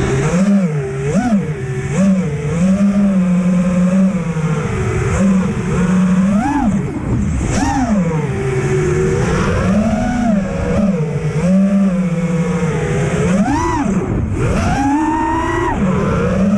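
Brushless motors and propellers of an FPV freestyle quadcopter (RCInPower Smoox 2306 2580KV) whining, the pitch swooping up and down with repeated throttle punches. The throttle jumps sharply right at the start, and there is a quick drop and steep climb near the end.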